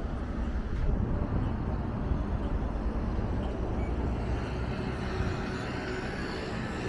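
City street traffic: motor vehicles running past in a steady, low noise, with the hiss of the traffic growing stronger about halfway through.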